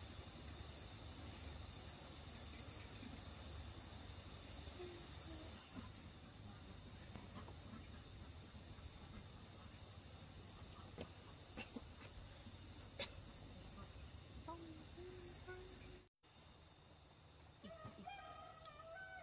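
A steady high-pitched drone of insects, with a few soft chicken clucks. A cat starts to meow near the end, and the sound cuts out for an instant shortly before.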